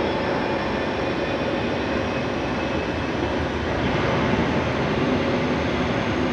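Jet noise from an Airbus A310-300 freighter on pushback: a steady rush with a faint high whine that slowly rises in pitch.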